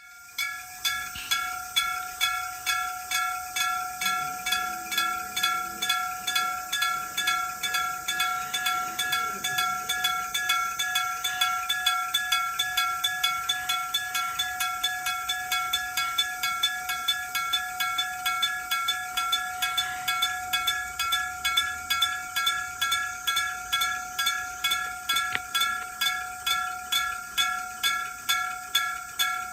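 Japanese level-crossing electric bell, a metal bell struck by an electric hammer, ringing rapidly at about three strikes a second as the crossing warns of an approaching train. It starts suddenly at the beginning, and each strike rings on into the next.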